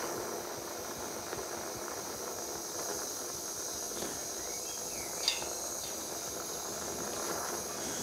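Handheld gas blowtorch flame hissing steadily as it heats an aluminium joint toward brazing temperature for a Lumiweld rod, with one brief sharp sound about five seconds in.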